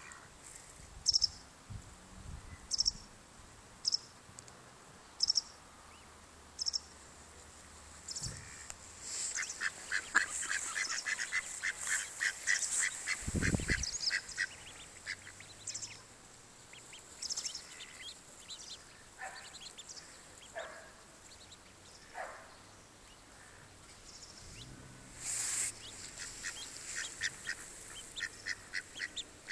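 Mallard ducks and ducklings calling: a few scattered high peeps early on, then runs of rapid short calls through the middle and again near the end. A brief low rumble comes about halfway through.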